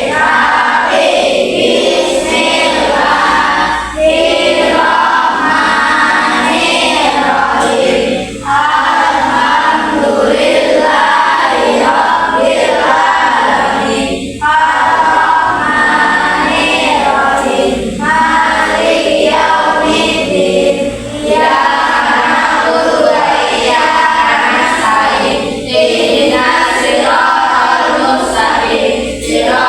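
A group of voices singing a song together, phrase by phrase, with a short breath gap every three to six seconds.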